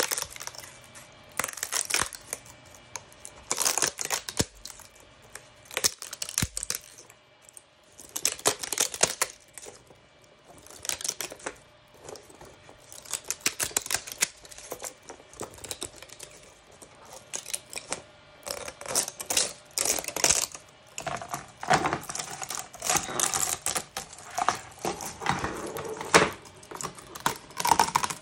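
Silk PLA 3D print popping off a flexed flexible build plate: repeated bursts of sharp crackling and clicking every second or two as the print breaks loose. Toward the end the loose plastic segments of the articulated dragon click against each other as it is lifted.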